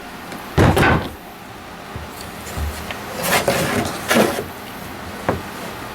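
Wooden boards being handled and shifted on a workbench: a knock about half a second in, then wood rubbing and scraping, and a short click near the end.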